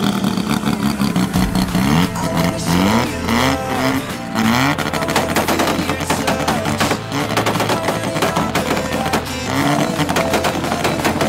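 Car engine revved repeatedly, its pitch climbing and dropping with each blip of the throttle, with rapid crackling pops from the exhaust.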